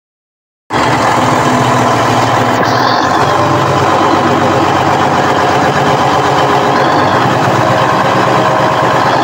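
Yanmar 6AYM six-cylinder marine diesel engine running steadily after its top overhaul, cutting in abruptly about a second in, with a steady whine over the engine noise.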